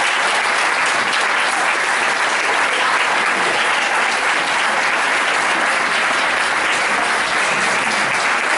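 Audience applauding with steady, sustained clapping.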